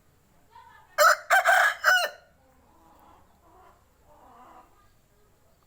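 Aseel rooster crowing once, a short loud crow of about a second broken into a few choppy notes, starting about a second in.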